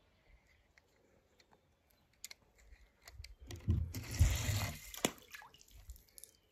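Faint handling noise: a few light clicks and a brief rustle, loudest from about three and a half to five seconds in, as a small die-cast toy car is set down and pushed by hand on a glitter foam board.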